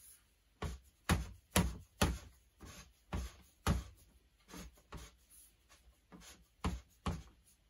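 EMT conduit being pushed and turned through snug 3D-printed plastic clamps, giving about a dozen sharp, irregular clicks and knocks roughly every half second.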